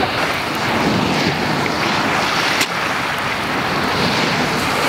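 Steady wash of lake surf on a cobble shore, mixed with wind buffeting the microphone. A single sharp click about two and a half seconds in.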